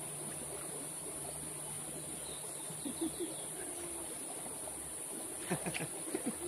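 Shallow rocky river flowing, a steady hiss of water, under a steady high insect drone. Near the end come a few small splashes as a wader's hands move in the water.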